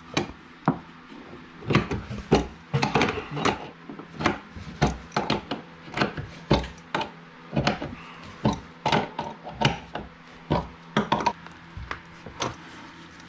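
Irregular metallic clicks and knocks of bolt hardware being fitted and tightened by hand against a wooden beam, several a second and sometimes in quick clusters.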